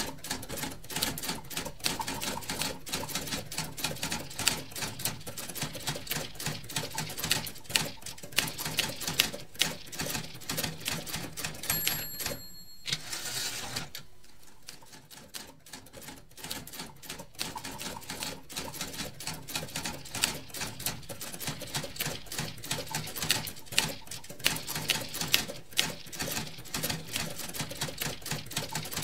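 Typewriter keystrokes clacking in a rapid, uneven stream. About twelve seconds in a single bell-like ding rings, and the typing pauses for a second or two before carrying on.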